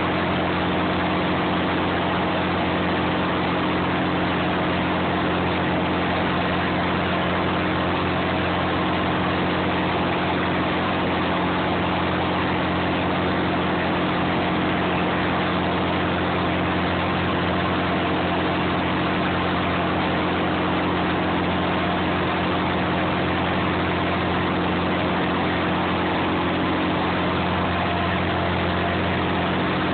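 Clam boat's engine running steadily, a constant drone with a low hum of even tones.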